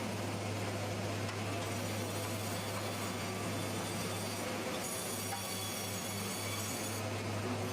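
Steady machinery noise with a constant low hum and no distinct cuts or impacts.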